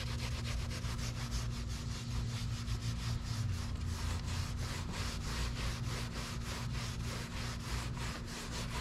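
Microfiber towel scrubbed quickly back and forth over a fabric-covered sun visor, rubbing out stains with cleaner, about four or five strokes a second. A steady low hum runs underneath.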